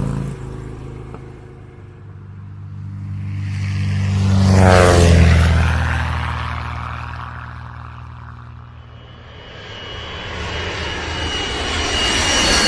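Propeller airplane flying past: its engine drone grows louder to a peak about five seconds in, drops in pitch as it passes, then fades away. Another loud noisy sound builds up over the last few seconds.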